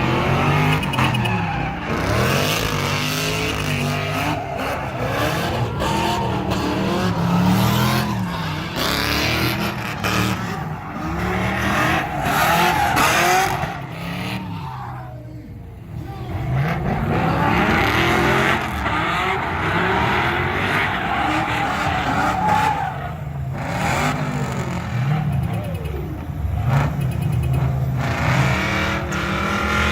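Car engine revving up and falling back again and again under a steady hiss. It drops away briefly about halfway through, then picks up again.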